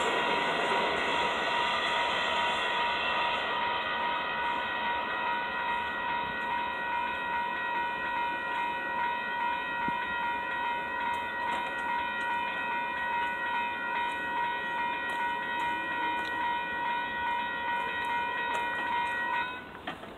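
Several electronic railroad crossing bells (WCH and Siemens) ringing together in a steady pulsing rhythm, over the fading rumble of a commuter train that has just passed. The bells cut off suddenly about 19 seconds in, as the gates finish rising.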